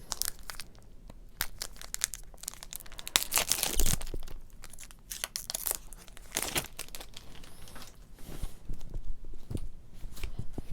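Foil Pokémon trading card booster pack being torn open and crinkled: a run of short tearing rips and crackles, densest about three to four seconds in.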